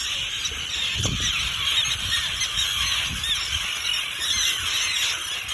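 A colony of terns calling all at once, many harsh, arching calls overlapping in a steady din: adults alarmed at people close to their chicks and eggs.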